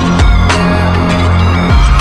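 Background music: a hip-hop track with heavy bass and a steady beat.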